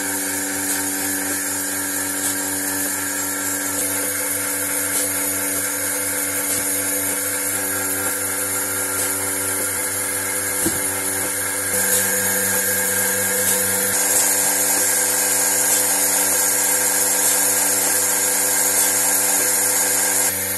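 Milking machine running: a steady, loud motor whine from its vacuum pump, with faint regular ticks about once a second. It gets louder about twelve seconds in and again a couple of seconds later.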